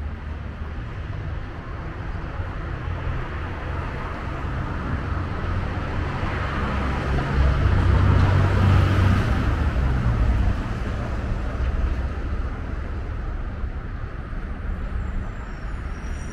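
Road traffic on a city avenue: a steady hum of engines and tyres that swells as a vehicle passes close about halfway through, then eases off.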